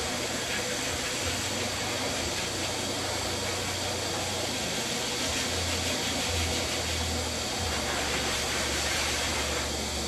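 Electric dog-grooming clippers running steadily through a dog's coat: a constant buzz and hiss.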